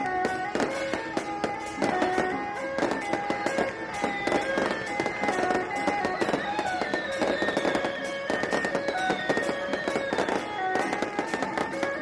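Firecrackers popping in a dense, irregular crackle over traditional procession music playing a stepping melody.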